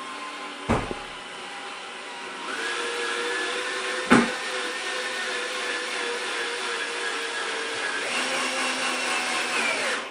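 Cordless drill motor running steadily under load for several seconds, with two sharp knocks. It winds down in pitch near the end.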